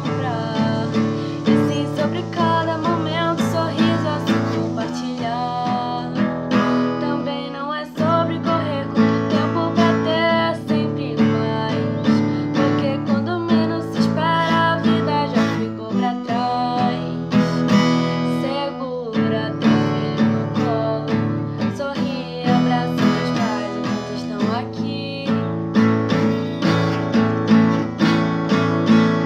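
Acoustic guitar strummed in a steady rhythm, playing an instrumental passage between sung lines.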